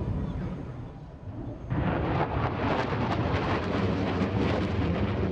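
Jet roar from an F-111's twin TF30 afterburning turbofans during a dump-and-burn pass. A low rumble gives way about two seconds in to a sudden, much louder crackling roar that holds on.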